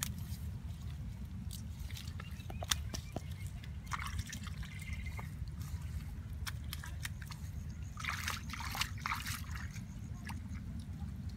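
Hands sloshing and scooping in shallow muddy water, with drips, small splashes and wet squelches as fish are picked out into a wire-mesh basket trap. A steady low rumble runs underneath.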